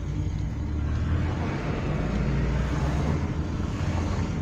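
Opel Mokka on the move, heard from inside the cabin: a steady low engine hum with road noise.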